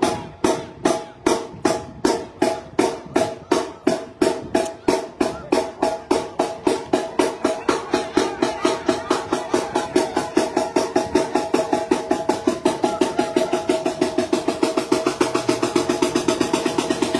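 Sinaloan banda playing live: a drum beat that speeds up steadily from about two strikes a second to a fast roll, over long held brass notes.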